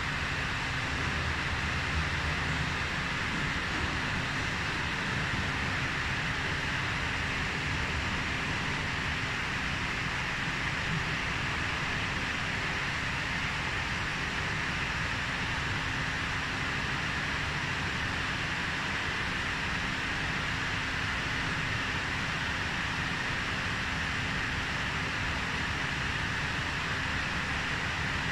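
Steady whooshing air noise of equipment cooling fans, with a low constant hum running under it.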